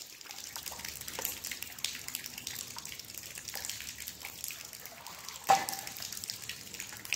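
Shallow river water splashing and dripping around a wading person's legs and hands as he reaches into the water, made up of many small scattered splashes and drips. A louder sudden sound comes about five and a half seconds in.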